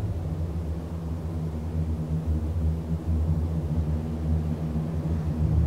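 Low, steady rumbling background noise with a faint hum.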